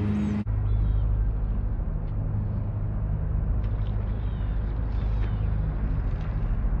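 A steady low outdoor rumble, starting abruptly about half a second in, with faint bird chirps now and then and a few soft clicks.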